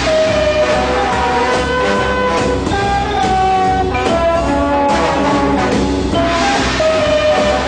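Instrumental music with brass and a drum kit: a jazzy horn melody over a steady beat.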